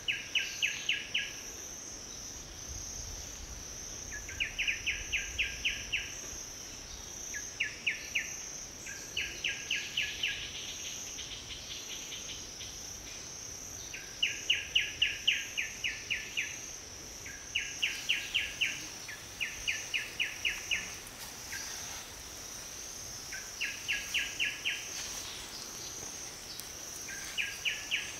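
Insect chorus: a steady high-pitched buzzing drone, with short rapid ticking trills of about a second each, repeating every two to four seconds.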